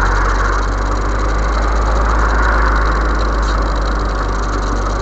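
Steady engine and road noise of a moving car, heard inside the cabin: a constant low hum under an even rushing haze.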